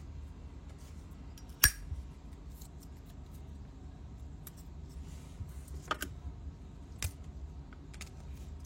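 Silver-plated Zippo lighter being handled: one loud sharp metal click about one and a half seconds in, then a few softer clicks and light rattling.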